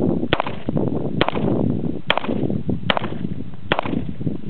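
Rossi 2-inch snubnose .357 Magnum revolver firing .38 Special 158-grain rounds in steady single shots, five a little under a second apart, with a sixth at the very end.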